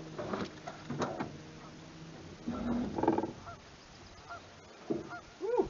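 Geese honking several times, with a loud honk near the end. A few sharp knocks and rattles in the aluminium boat in the first second or so.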